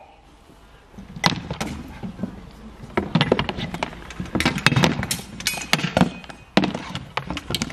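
Mock melee fighting: wooden spear shafts and staves knocking and clacking against round wooden shields in an irregular rapid clatter that starts about a second in.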